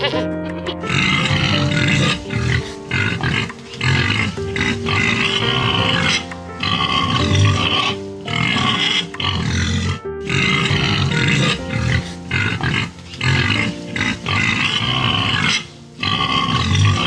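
An animal making short, irregular calls, in repeated bursts with brief pauses, over steady background music.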